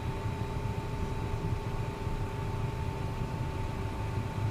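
Cockpit noise of a Cessna Citation M2 taxiing with its two turbofans at idle: a steady low rumble with two faint steady whines running through it.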